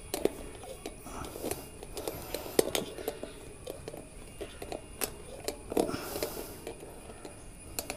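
Light clicks and small scrapes of hand work as the inner tube's valve stem nut is tightened against a spoked wheel rim.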